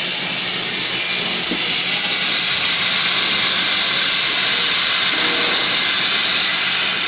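Gantry-type CNC plasma cutting machine giving a loud, steady hiss with a high whine, without a break.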